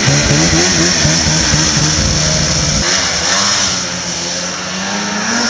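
Polaris 800 RMK snowmobile's two-stroke twin engine running close by, its pitch rising and falling as it is revved. About three seconds in the sound cuts to the sled heard from farther off, its engine pitch rising steadily as it accelerates.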